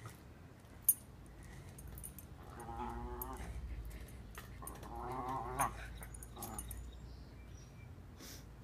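A Welsh Terrier holding a stainless steel bowl in its mouth gives two drawn-out, wavering vocalizations, a couple of seconds apart. A sharp click comes about a second in, and another at the end of the second call.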